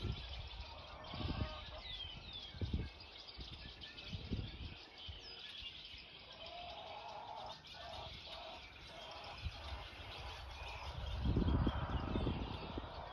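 Birds chirping and calling outdoors in short, high, gliding chirps, with gusts of wind buffeting the microphone; the wind gusts are loudest near the end.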